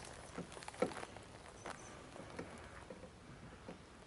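Faint, irregular clicks and taps scattered through the quiet, the loudest about a second in: small handling noises of an angler and tackle in a small boat.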